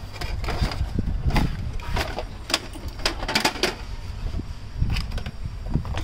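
Irregular plastic clicks and knocks as a laser printer's plastic housing and front tray are handled during disassembly.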